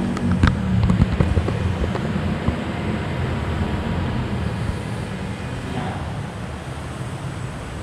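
Low engine rumble of a motor vehicle fading away over a steady background noise, with a few light clicks about half a second and a second in.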